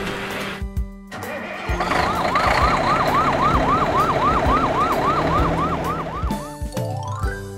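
Cartoon fire truck siren sounding a fast yelp, each tone swooping up and down about three to four times a second, over a rumbling noise as the truck pulls away. Short musical notes come just before it, and a quick rising musical sweep near the end.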